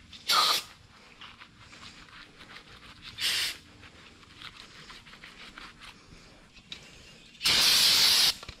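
Aerosol can of brake cleaner spraying onto an engine block in three hisses: short ones about half a second and three seconds in, and a longer, louder one of nearly a second near the end. In between, a rag rubs faintly over the metal.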